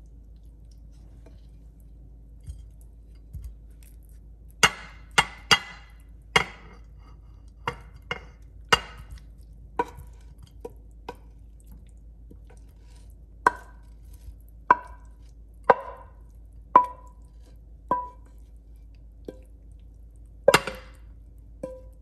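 Knife chopping on a cutting board in separate sharp strokes, each with a short ring: a quick group of three, then slower single chops about a second apart, and a louder stroke near the end.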